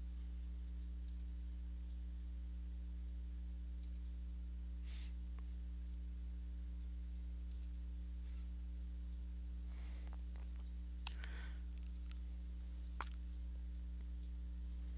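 Steady low electrical hum and hiss from the recording's microphone line, with scattered soft clicks, two sharper ones about eleven and thirteen seconds in, and a couple of brief rustles.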